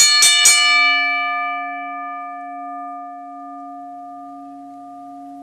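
A bell struck three times in quick succession, then ringing out and slowly fading: a ring bell sounding for the round.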